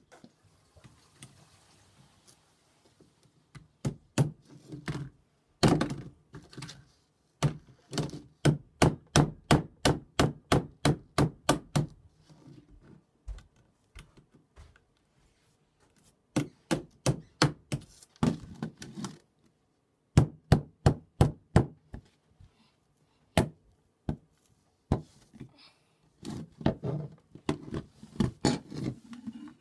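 A broken compact digital camera being whacked with a tool on a wooden workbench: sharp knocks in fast runs of about three a second, broken by short pauses.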